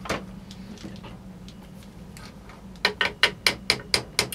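Sharp clicks from working an AK47's lower handguard retainer forward on the barrel: one click at the start, then near the end a quick even run of taps, about four to five a second.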